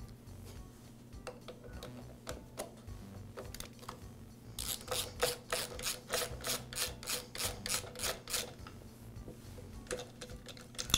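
A hand nut driver loosening the nuts that hold a blower's air box to the carburetor. After a few scattered handling clicks, an even run of sharp clicks, about five a second, lasts some four seconds in the middle.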